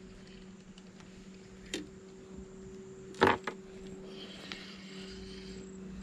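A few light clicks and one sharp knock about three seconds in, from fishing tackle being handled in an aluminium boat, over a steady low hum.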